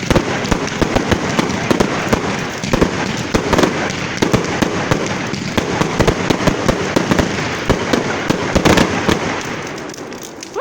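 Fireworks crackling: a dense run of rapid crackles with louder pops scattered through, thinning out near the end.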